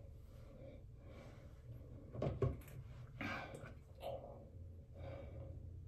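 A few soft knocks and rustles from a smartphone being picked up and handled, against quiet room tone. The sharpest knock comes about two and a half seconds in.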